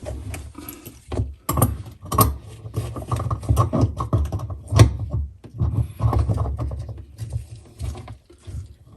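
Adjustable wrench and metal plumbing fittings clicking and knocking as a faucet supply-line nut is unscrewed, in irregular bursts of small clanks and dull thumps.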